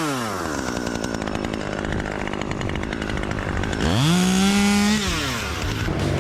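Gas chainsaw revving up and dropping back to idle: the revs fall away at the start, it idles for a few seconds, then it is throttled up again about four seconds in, held about a second, and released.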